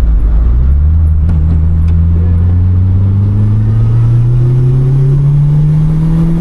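Nissan March Super Turbo's twincharged 930 cc four-cylinder engine pulling under acceleration, its note rising slowly and steadily through the revs, a smooth sound.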